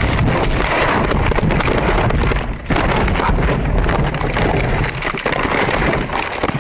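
Car crash heard from inside the cabin as a truck strikes the car: loud continuous crunching and rattling of metal and breaking glass, full of sharp impacts, with a short break about two and a half seconds in.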